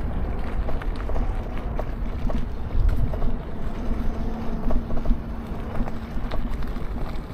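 Wind rumbling on the microphone, with a steady low hum most prominent in the middle and scattered light clicks.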